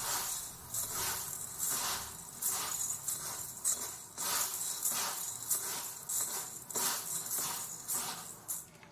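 Hands stirring and rubbing dry red lentils (masoor dal) and raw rice grains in a stainless-steel bowl: the grains rustle and hiss in repeated strokes, about two a second.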